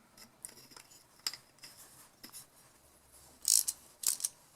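Small carburetor parts being handled: scattered light clicks and rubbing, with two louder short scratchy noises near the end.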